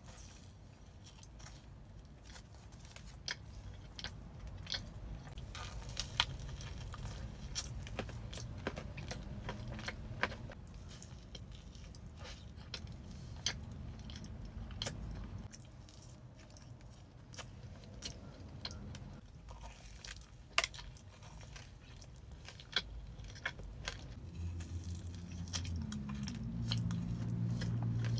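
Close-up eating sounds: a person biting into and chewing crunchy food, with many sharp crunches and clicks.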